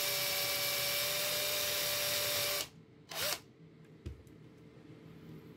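Cordless drill with a 1.5 mm bit running with a steady whine while drilling a small hole in a plastic scanner carriage. It stops suddenly about two and a half seconds in, followed by a brief second burst and then a single light knock.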